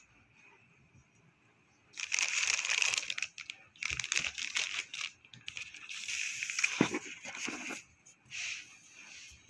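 Clear plastic wrapping crinkling and rustling as it is handled, in irregular bursts that start about two seconds in and go on nearly to the end.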